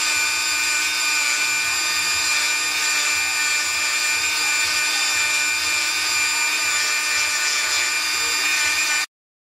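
Flex-shaft rotary tool running at high speed with a sanding drum, grinding into a plastic model horse's head: a steady whine that cuts off suddenly near the end.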